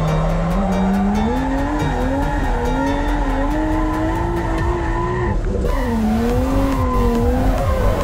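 Nissan Skyline R33's RB25 straight-six revving hard while drifting, its note climbing and wavering as the throttle is worked, with tyres squealing. About five seconds in the revs drop sharply, then pick up again.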